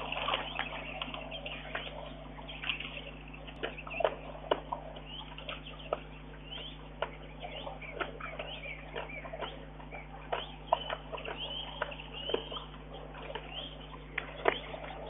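Brown bear feeding at a log, with irregular sharp clicks and crunches, over the chirping of small birds and a steady low electrical hum.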